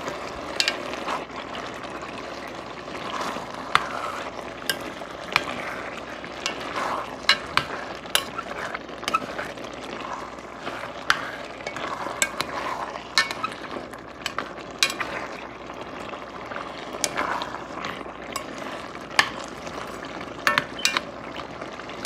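Tomato-and-pepper stew sauce sizzling in an enamelled pot as fried beef chunks are stirred through it with a metal spoon. The spoon makes irregular clicks and scrapes against the pot over the steady sizzle.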